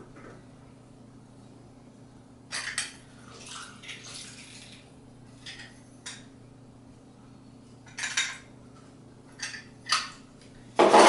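Handheld hinged citrus squeezer working lime halves over a small bowl: a scattered series of short clacks and scrapes, with a louder knock near the end.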